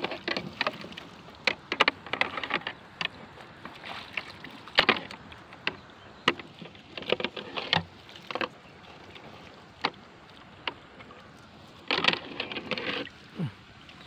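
Freshly caught small fish spilling from a mesh net into a plastic crate and moving about in it: irregular wet slaps and taps, with a denser stretch of them about twelve seconds in.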